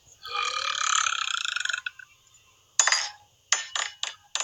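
A woman's long, rough belch lasting well over a second, followed from about three seconds in by several short, sharp clicks.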